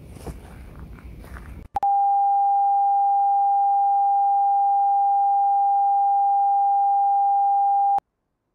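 A walker's footsteps for the first couple of seconds, then a single steady television test-card tone for about six seconds, which cuts off abruptly.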